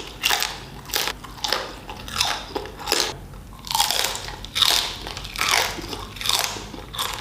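A person chewing food close to the microphone, a steady run of mouth-noise strokes at about two chews a second.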